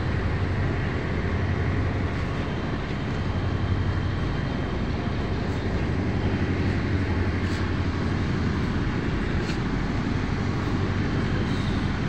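Heavy machinery running on a crude palm oil barge during discharge, a steady low drone that stays even throughout.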